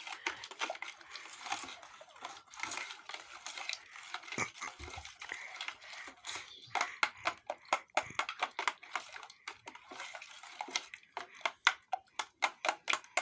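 Irregular crinkling and clicking handling noise, with a couple of dull knocks near the middle; the clicks grow sharper and louder in the second half.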